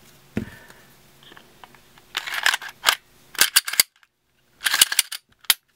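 Glock 26 pistol being reassembled by hand: a few faint ticks, then from about two seconds in a run of sharp clicks and short sliding scrapes as the recoil spring assembly is seated and the slide is fitted back onto the frame and worked.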